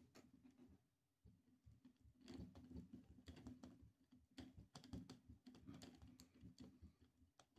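Faint, irregular clicks and scrapes of a small Torx screwdriver turning a tiny screw into the plastic battery latch trim of a Baofeng UV-5 radio, with fingers handling the radio.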